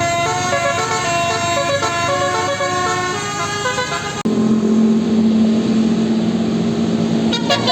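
Bus telolet 'basuri' melody horn playing a tune of short stepping notes. About four seconds in it cuts suddenly to one steady low drone with a hiss underneath.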